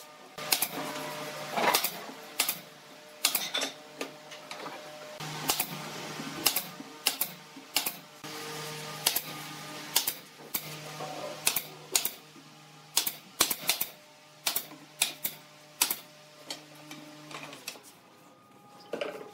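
Pneumatic nail gun firing nails into pine slats, a sharp shot at irregular intervals, about one or two a second, over soft background music.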